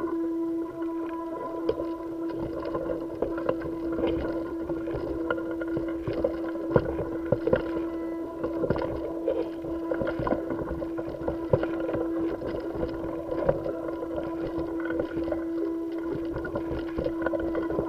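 Steady machine hum with a clear, constant mid-pitched tone, picked up through a spacewalker's suit-mounted camera, under irregular light clicks and knocks as the gloved hand handles tethered gear.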